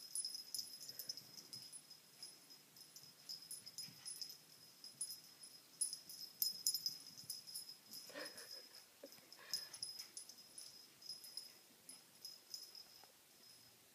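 A puppy playing among its toys. There is faint light jingling and clicking as it moves about, and two short puppy vocal sounds, about eight and nine and a half seconds in.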